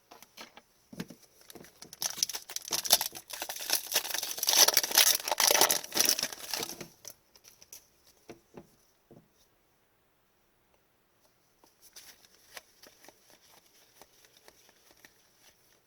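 Foil wrapper of an Upper Deck hockey card pack being torn and crinkled for about five seconds, a dense crackling full of small clicks. Near the end, fainter rustling and light clicks as the cards are handled.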